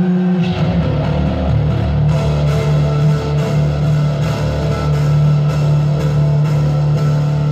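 Loud rock band playing live: distorted electric guitar and bass holding heavy chords over a steady drum beat, about two hits a second.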